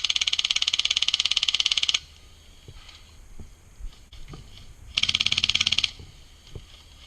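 HPA-powered G&G airsoft light machine gun with a Wolverine Inferno Gen 2 Spartan engine firing full-auto: a rapid, even rattle of shots that stops about two seconds in, then a second, shorter burst of about a second near the five-second mark.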